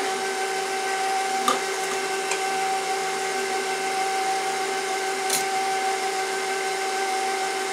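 Bowl-lift stand mixer running steadily on its low stir setting, a constant motor whine, with a few light taps of a measuring scoop against the plastic pouring shield as flour is tipped in.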